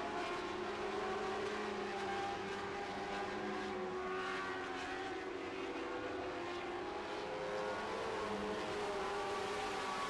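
A field of Lightning Sprint race cars running at racing speed, their engines making a steady drone of several overlapping pitches that rise and fall slightly as the cars work around the track.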